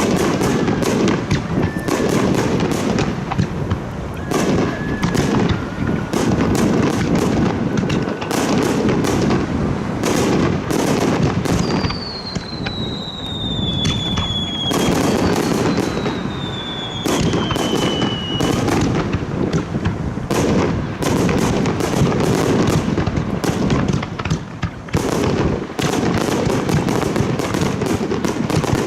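Fireworks display: a dense, continuous barrage of bursts and crackling, with two high falling whistles around the middle.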